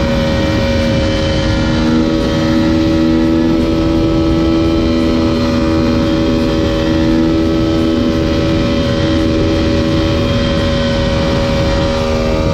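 Supermoto motorcycle engine held at a steady high rpm through a long wheelie, its pitch hardly changing, with heavy wind rushing over the bike-mounted microphone.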